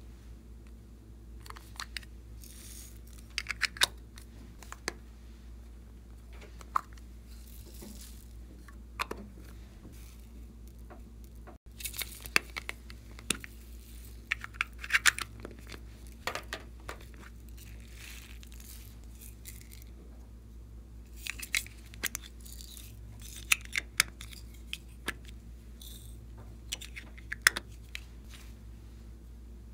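Slime being kneaded and stretched by hand, giving sticky crackling and small popping clicks in irregular bursts, over a steady low hum.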